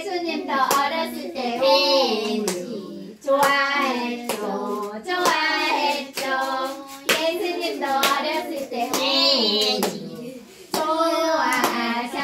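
Children singing a song together, with hands clapping along through it and short breaks between the sung phrases.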